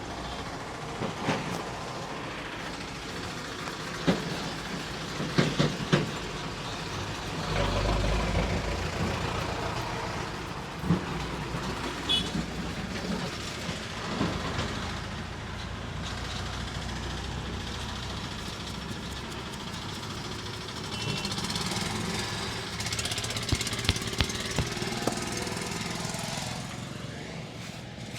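Roadside traffic noise with a heavier vehicle rumbling past about eight seconds in, and scattered sharp knocks.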